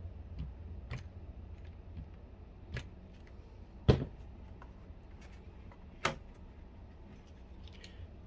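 Hard plastic parts clicking and knocking as they are handled and fitted together by hand: a few light clicks, a sharp knock about four seconds in and another about six seconds in, over a low steady hum.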